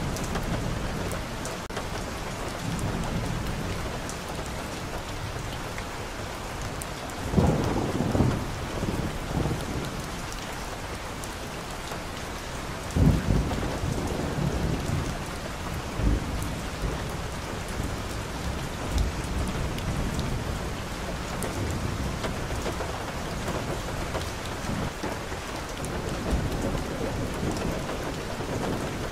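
Steady rain falling on a street and on balcony plants, an even hiss. A few brief low rumbles rise out of it, the loudest about a quarter and about halfway through.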